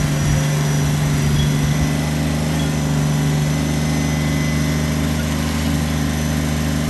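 Kubota BX23S compact tractor's three-cylinder diesel engine running at a steady speed while the tractor drives with a loaded front bucket.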